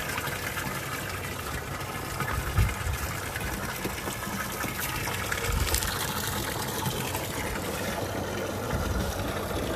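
Water running steadily from a hose that calves are drinking from, with a few dull low bumps about 2.5, 5.5 and 9 seconds in.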